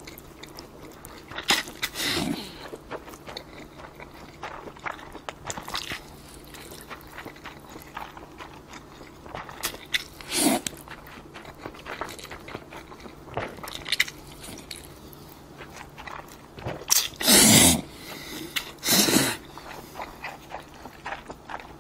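A person slurping up spicy bibim-myeon noodles in several loud slurps, the biggest ones near the end, with wet chewing between them.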